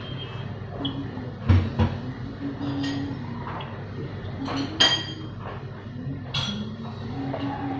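Several short clinks and knocks of pots, dishes and utensils, the loudest about one and a half and five seconds in, over a steady low hum.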